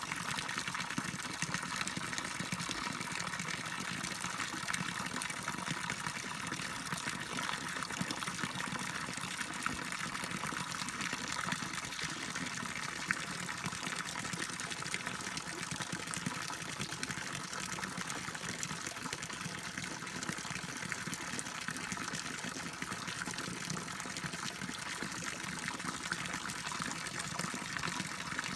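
Small spring-fed stream running over stones, a steady trickle and splash of shallow water.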